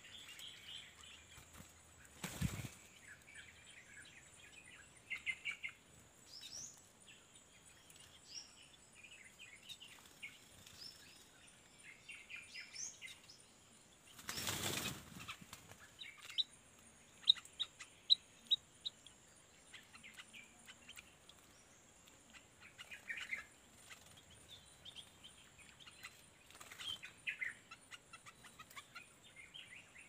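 Small forest birds chirping and giving quick ticking calls on and off, over a faint steady high-pitched whine. Two brief rushing noises break in, a short one about two and a half seconds in and a louder one, about a second long, near the middle.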